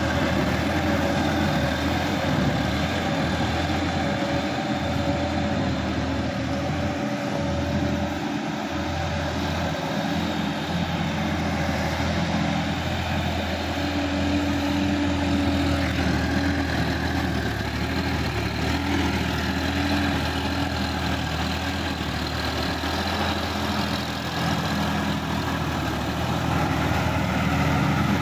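Sonalika tractor's diesel engine running steadily under load while it drives a rotary tiller through a flooded, muddy paddy field.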